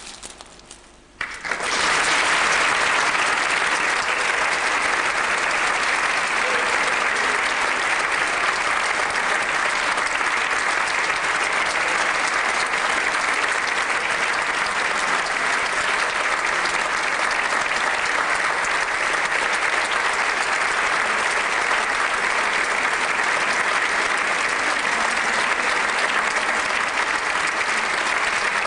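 Audience applauding. The clapping breaks out suddenly about a second and a half in and then holds steady and dense.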